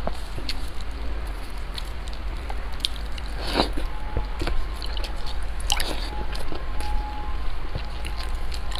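Close-miked wet chewing and mouth smacks of someone eating, with small clicks throughout and a few louder wet bursts a couple of seconds apart, over a steady low hum.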